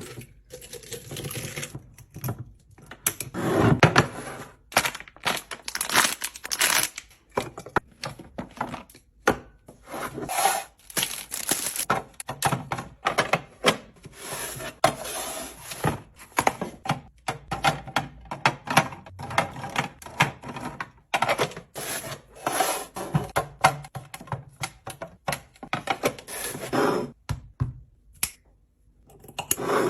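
Containers and groceries being handled and set into a fridge one after another: a steady stream of uneven taps, clicks, clinks and rubbing of plastic and glass.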